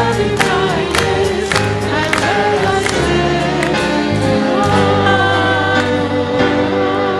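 Music: singing with vibrato over a band with bass and a percussive beat of about two strokes a second, which drops out about three seconds in, leaving held sung notes.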